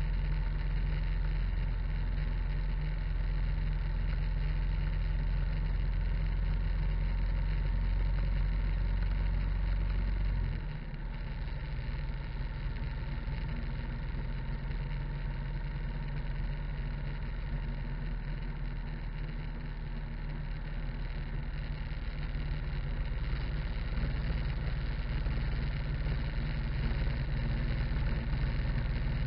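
Harley-Davidson motorcycle's V-twin engine running steadily while riding, with tyre and road noise. The deep engine note drops suddenly about a third of the way in and grows louder again about three quarters of the way through.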